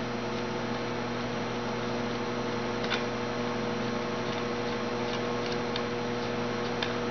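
Steady electrical mains hum, with a few faint clicks as a stainless hose-clamp band is tightened by hand.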